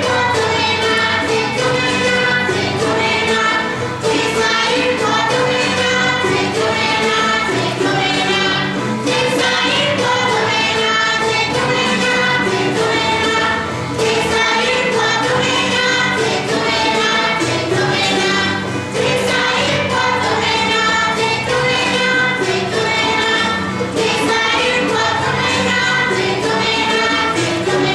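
West African music from Ghana: a group singing together over a gyil (xylophone) and percussion, in a steady, unbroken stream of quick notes.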